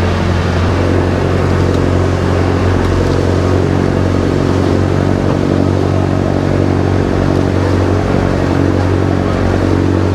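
Inboard engine of a motorized Filipino outrigger canoe (bangka) running steadily at cruising speed, with a constant low drone.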